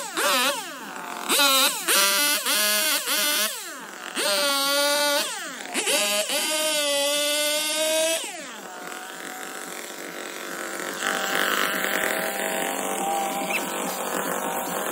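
Small two-stroke chainsaw revving in repeated bursts as it cuts through branches, each rev rising and falling in pitch. About eight seconds in it drops back to a lower, steady running.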